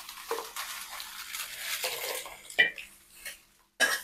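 Dry-roasted red chillies rustling as they are scraped and tipped out of a metal kadhai into a steel basin, with a few clinks of the metal spatula against the pan. The loudest clink comes about two and a half seconds in.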